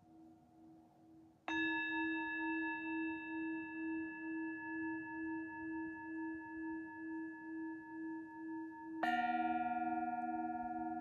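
Singing bowls struck and left to ring: one about a second and a half in, sustaining with a slow wavering pulse, then a second bowl with a different pitch struck near the end.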